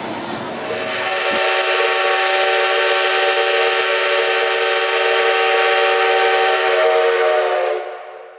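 JNR Class D51 steam locomotive (D51 200) sounding its steam whistle for departure: one long blast of about six seconds, a chord of several steady tones, which cuts off near the end. Before it, about a second of steam hissing that breaks off abruptly.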